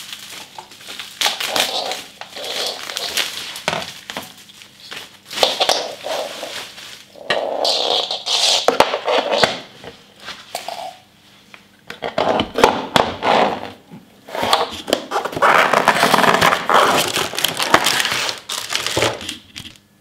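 Plastic bubble-wrap packaging crinkling and crackling in irregular bursts, with scattered knocks and scrapes as a canister aquarium filter and its parts are unwrapped and handled.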